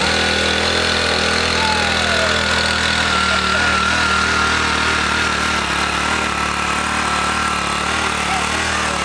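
Small petrol engine of a kids' go-kart idling steadily.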